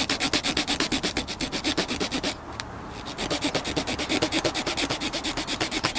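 Saw-toothed edge of a high-carbon-steel Beaver Bushcraft Tinder Teaser striker sawing a stick of fatwood, in quick, even back-and-forth rasping strokes of about six or seven a second. There is a brief pause a little over two seconds in, then the sawing resumes.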